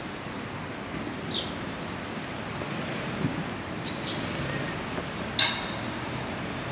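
Steady city street hum of distant traffic, with three short bird chirps standing out; the loudest comes about five and a half seconds in.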